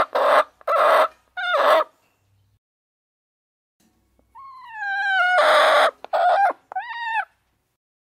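A chicken calling loudly twice, with silence between. Each call is a downward-gliding note, then a harsh screechy stretch, then a few short notes.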